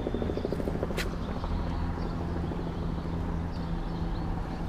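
A steady low mechanical drone with a fast flutter through the first second, one sharp click about a second in, and a few faint high chirps.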